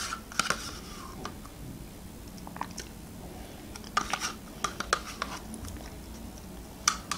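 Metal teaspoon scraping and clicking against the inside of a plastic yogurt cup in short, scattered strokes, with quiet eating sounds as the yogurt is spooned into the mouth.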